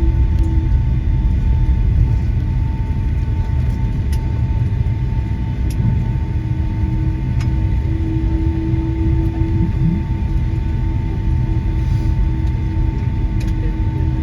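Boeing 757 cabin noise on the ground after landing: a steady low rumble with a steady whine held on one pitch and a second, lower tone that comes and goes.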